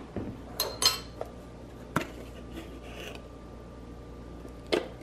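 Measuring cup and metal measuring spoon clinking and knocking against a glass mixing bowl and ingredient containers while flour and baking powder are measured out. A few light clicks come in the first two seconds, with a sharper one about two seconds in, then a quieter spell and a louder knock near the end.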